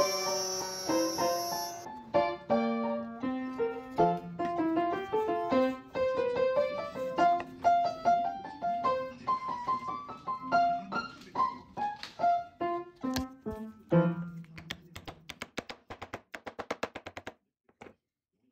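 Background piano music, a slow melody of single notes and chords that fades out a few seconds before the end. A high steady whine sounds over it for the first two seconds. Near the end a run of quick, sharp clicks comes in as the music dies away.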